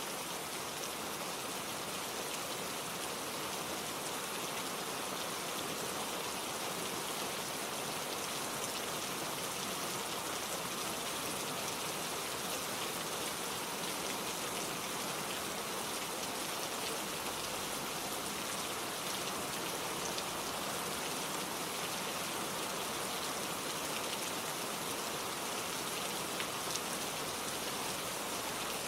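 Steady, gentle rain falling, with fine drops pattering on surfaces and no thunder.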